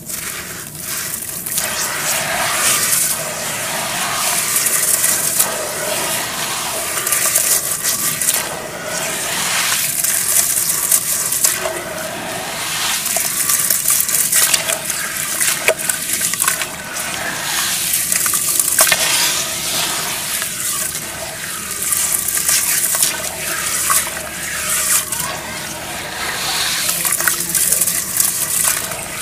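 Hands squeezing and crumbling lumps of wet brown dirt in a tub of muddy water: splashing and squelching, with gritty crumbs dropping back into the water, swelling and easing every few seconds.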